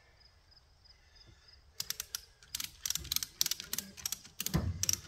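Hand ratchet being worked, clicking in quick runs of strokes that start about two seconds in, with a dull thump near the end.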